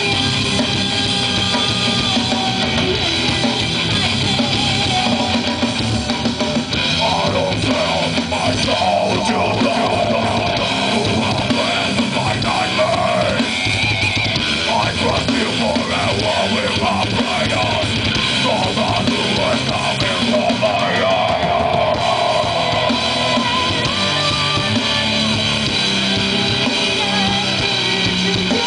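A rock band playing live at full volume, with a drum kit and guitars and a singer's voice over them from about a quarter of the way in to about three quarters through.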